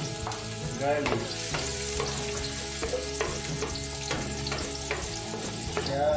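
Minced garlic sizzling in hot oil in an aluminium wok as it is sautéed, with a steady frying hiss and small scattered ticks as a wooden spoon stirs and scrapes it across the pan.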